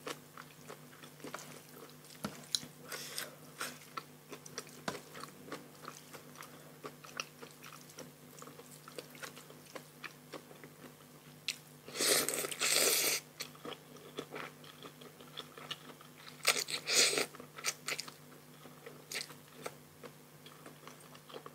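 Close-miked mukbang eating: steady chewing with small wet clicks and crunchy bites of a spicy rice-noodle papaya salad with raw shrimp and fresh vegetables. Two louder, noisier bites of about a second each stand out, a little past halfway and about three-quarters in.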